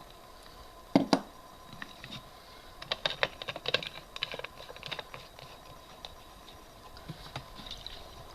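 Hands handling a McCulloch 797 chainsaw: two sharp knocks about a second in, then a quick run of light clicks and taps for about two seconds, thinning out toward the end.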